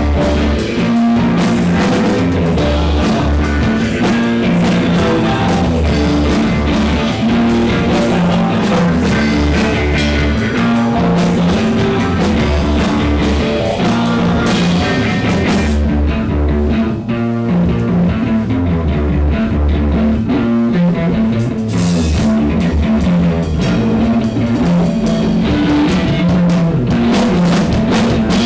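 Live rock band playing an instrumental passage on electric guitar, electric bass and drum kit. Past the middle the cymbals drop out for several seconds, leaving mostly guitar and bass, then come crashing back in.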